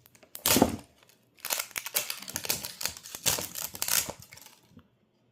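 Plastic packaging crinkling and tearing as a mystery toy egg is unwrapped by hand: a loud burst about half a second in, then about three seconds of steady crackling that stops near the end.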